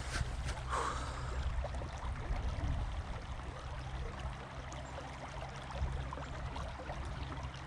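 Creek water flowing steadily, a continuous rushing hiss with a low rumble under it, and a brief rustle about a second in.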